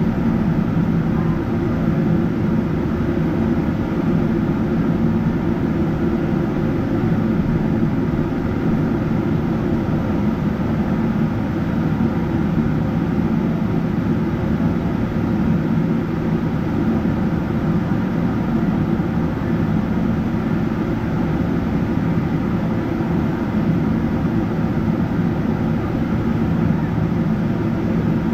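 Steady low drone of a Boeing 777-300ER's GE90-115B turbofans and airflow heard inside the cabin, holding the same pitch and level with no spool-up.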